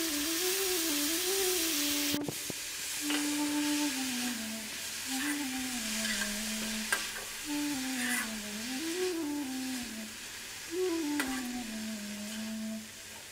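Spinach and tomato-onion masala sizzling in an oiled wok while a metal spatula stirs it, with a few sharp scrapes against the pan. The sizzle is loudest in the first two seconds and quieter after. A slow background melody on a flute-like instrument plays throughout.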